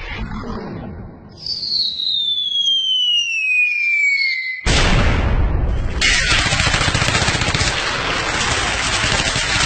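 Staged war sound effects: a falling-bomb whistle sliding down in pitch for about three seconds, cut off by a sudden explosion, then a dense crackle of gunfire and battle noise.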